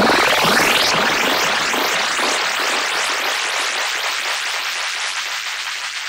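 Sweep sound effect: a dense hiss made of many overlapping rising glides. It starts abruptly and slowly fades.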